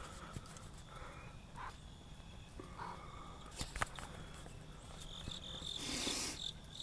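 A kitten mewing faintly: two short, high cries. There is a brief noisy burst near the end.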